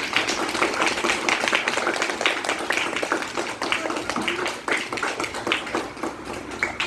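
Gift wrapping being torn and crinkled as a present is unwrapped: a dense run of irregular rustles and crackles.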